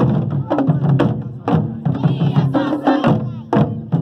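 Music with a steady beat of sharp, woody percussion strikes and a singing voice over it.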